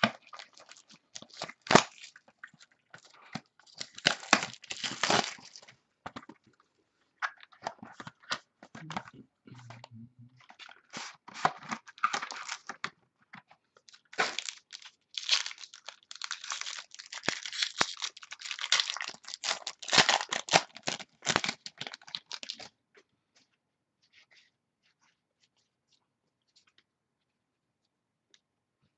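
Packaging of a trading-card box being torn open and crinkled by hand, with cards and wrapper handled, in irregular crackling bursts that stop near the end.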